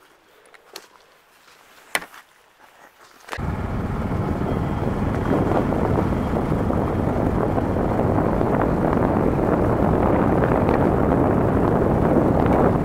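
A few light clicks and one sharp click in near quiet, then, just over three seconds in, a sudden switch to loud, steady rushing wind and road noise on the microphone of a camera riding on a moving motorcycle.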